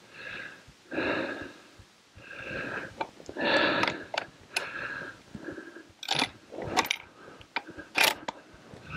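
A man breathing hard in several long breaths, then from about six seconds in a run of sharp metallic clicks and clacks from a scoped hunting rifle's action as it is handled just after a shot.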